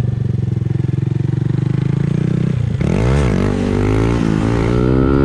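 Honda Grom's single-cylinder engine running steadily at low revs. About three seconds in it revs sharply up and back down, then climbs in pitch again as the bike accelerates.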